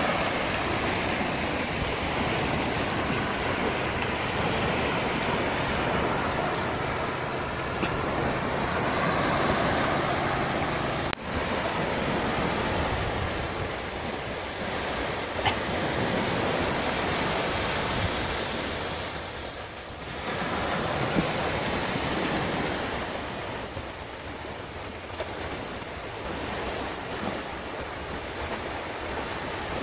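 Sea surf washing up a sandy beach: a continuous rushing that swells and eases, with a momentary break about eleven seconds in.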